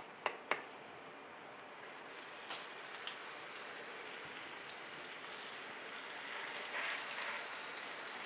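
Flour-dredged beef short ribs sizzling in hot oil in a cast-iron pot as the pieces are laid in one after another; the quiet sizzle grows slowly. Two sharp clicks about half a second in.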